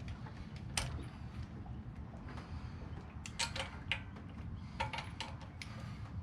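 Scattered metallic clicks and clinks of a wrench on a car wheel's lug nuts as they are tightened in a crisscross pattern, over a low steady rumble.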